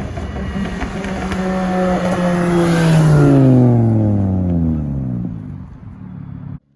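Straight-piped, ECU-tuned VW Jetta 2.5 inline-five passing at speed. The exhaust note grows to its loudest about three seconds in, then drops steadily in pitch as the car goes by and fades. It cuts off suddenly near the end.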